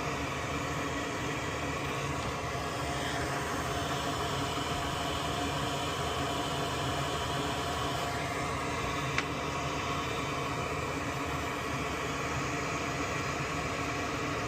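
Steady fan hiss with a low hum from a small electric blower, with one faint click about nine seconds in.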